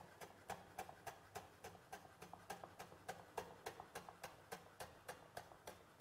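Kitchen knife slicing lemon peel finely on a wooden cutting board: an even run of light, quick chopping taps, about three a second.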